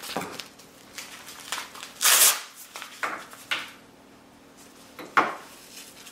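A blood pressure cuff being handled and wrapped around an arm: several short rasping, rustling bursts of its fabric and hook-and-loop fastener, the loudest about two seconds in.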